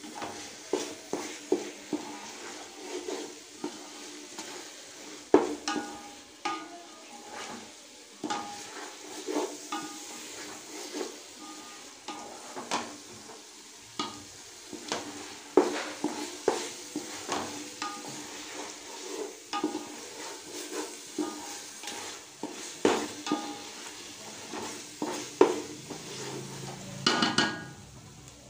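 Wooden spatula stirring and scraping a sautéing onion-tomato masala with coriander and mint in a metal pot: irregular scrapes and knocks against the pot over a steady sizzle, with a louder ringing clatter near the end.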